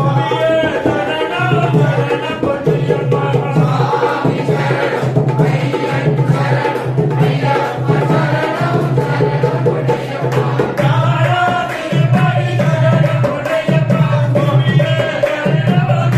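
Tamil Ayyappan devotional song (bhajan): a voice singing over a steady hand-drum rhythm.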